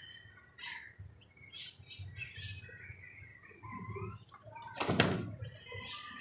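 Birds in a loft chirping and calling in short, repeated notes, with one loud, sudden clatter about five seconds in.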